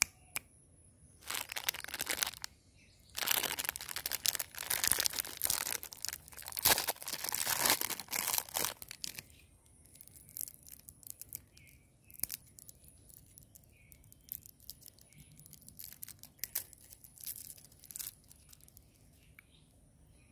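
A chocolate lollipop's plastic wrapper being torn open and crinkled by hand, loud and dense for the first nine seconds or so. After that come softer, scattered crinkles and clicks as the foil around the lollipop head is peeled off.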